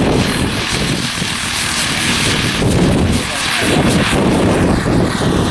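Radio-controlled scale model Bell LongRanger helicopter flying low, its engine and rotors running steadily, with a brief dip in loudness about three seconds in.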